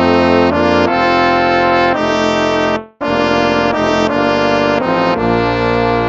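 Instrumental hymn music in held brass chords, played phrase by phrase, with a short break about three seconds in before the next phrase starts.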